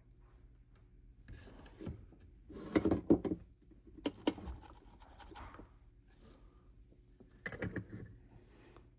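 Scratching, rubbing and light knocking from work at a soldering joint on a capacitor lead, coming in three short clusters over a faint steady low hum.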